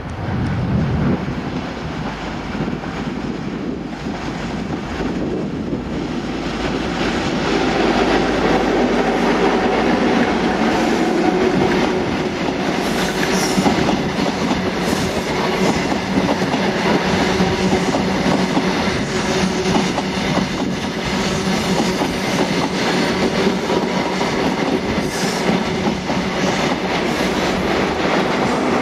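East Coast InterCity 125 HST passing, its Class 43 power car leading and Mk3 coaches rolling by with wheel clatter and sharp clicks over the track joints and pointwork. A steady drone runs under the wheel noise from about a quarter of the way in.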